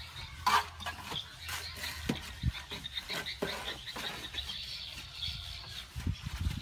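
Plastering trowels scraping and slapping cement mortar onto a wall: a run of short scrapes and knocks, the sharpest about half a second in. A steady high chirring runs in the background.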